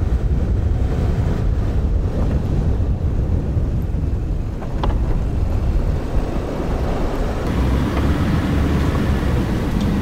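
GMC pickup truck driving slowly over snow-covered ground: a steady low rumble of engine and tyres.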